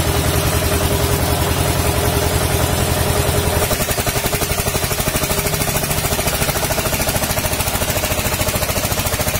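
1990 Eicher tractor's diesel engine running with a steady, even throbbing beat. It eases to a slightly quieter beat about four seconds in.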